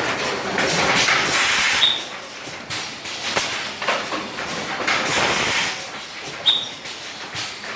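PET bottle blowing machine cycling: bursts of compressed-air hiss repeat about every four and a half seconds, each ending with a short high squeal, with mechanical clicks in between.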